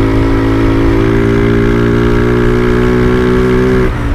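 Honda CG 150 Titan single-cylinder engine running at steady throttle under way, a constant even note through its crackly aftermarket exhaust. The note drops and breaks off briefly near the end, then picks up again.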